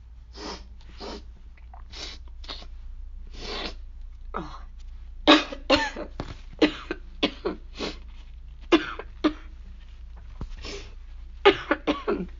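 A woman with a cold sniffling several times, then two fits of rapid coughing. The coughing is set off by the irritant she has put up her nose to make herself sneeze.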